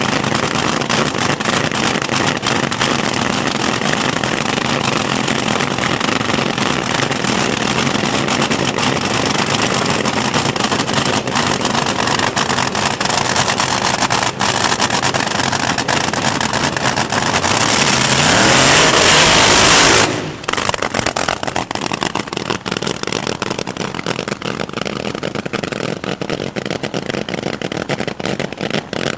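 Supercharged nitromethane Top Fuel dragster engines running loudly and steadily. About 18 seconds in they rise in pitch and loudness to full throttle, then drop off suddenly to a lower, steady noise about 20 seconds in.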